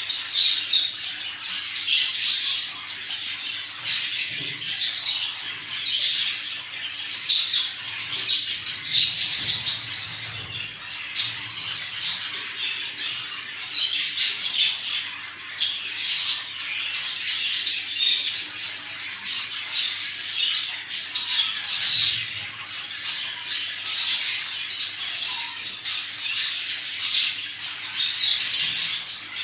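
Many budgerigars chattering together, a dense run of short overlapping chirps and squawks with no pauses. This is the flock chatter used to bring budgies into breeding condition.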